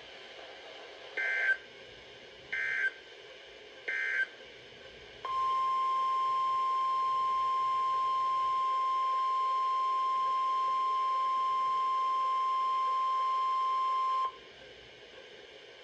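Three short warbling digital data bursts of the EAS/SAME code, then the steady single-pitch 1050 Hz NOAA Weather Radio warning alarm tone for about nine seconds, cutting off sharply.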